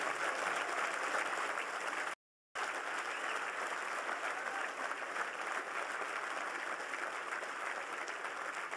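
Audience applauding steadily, the clapping cut off completely for a moment about two seconds in before it resumes.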